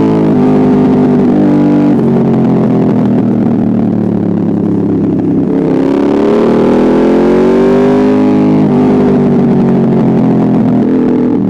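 Aprilia Dorsoduro 1200's V-twin engine running loud through an Arrow exhaust with the dB killer and catalytic converter removed. The engine note shifts in pitch: it drops sharply about two seconds in, climbs slowly over a couple of seconds past the middle, then drops suddenly again.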